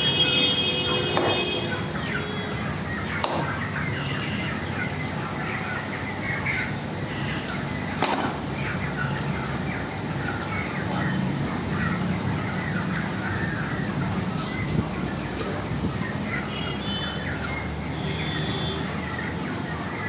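Busy background din of a shop or street, with many short high chirps and a few sharp knocks, the clearest about 8 seconds in. A steady alarm- or horn-like tone stops about two seconds in.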